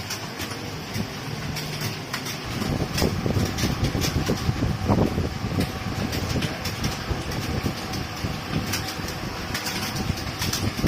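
Clatter of computer keyboards typed on during a typing test: quick, irregular key clicks over a steady low rumble that grows louder for a few seconds.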